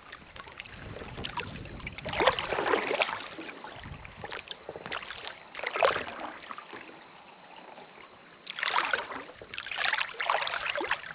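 Kayak paddle strokes: a double-bladed paddle dipping and pulling through calm water, splashing on alternate sides about once a second, with a lull of a couple of seconds partway through.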